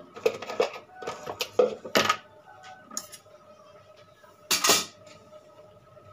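Metal kitchen utensils and pots clattering: a quick run of knocks and clinks over the first two seconds, one clink about three seconds in, and a louder clatter around four and a half seconds.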